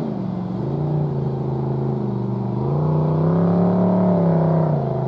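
An engine running, its pitch rising and holding higher for a couple of seconds, then dropping back near the end.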